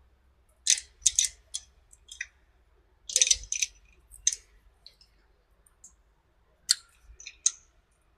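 Crimping tool clicking as it presses an aluminium cable lug onto the cable: short, sharp, high-pitched metallic clicks in irregular clusters.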